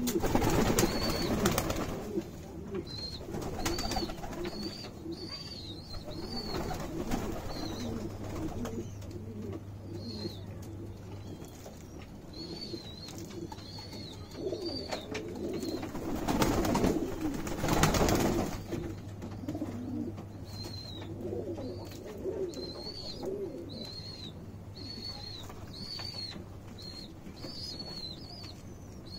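Domestic pigeons cooing continually as they feed, with short high chirps repeating in the background. Two louder bursts of rustling noise come at the start and again about two-thirds of the way through.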